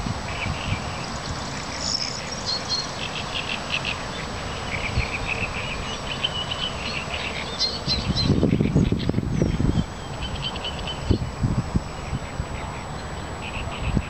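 Several songbirds singing and chirping in short repeated trills, with a louder low rattling burst about eight seconds in.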